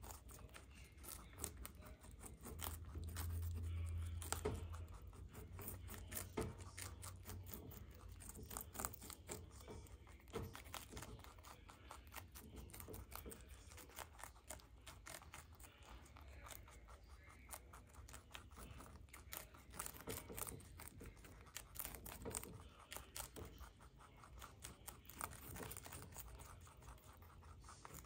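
Two baby rabbits nibbling cabbage leaves: a fast, faint run of crisp crunching and tearing clicks as the leaves are bitten off and chewed. A low hum swells for a couple of seconds a few seconds in.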